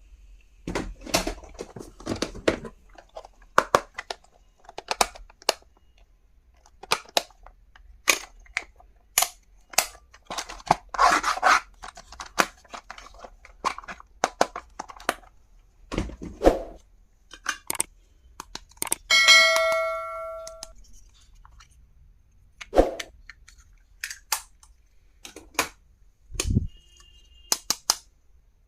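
Stationery packaging and items being handled and unwrapped: repeated clicks, tearing and crinkling of packaging. A single metallic ding rings for about a second a little past the middle.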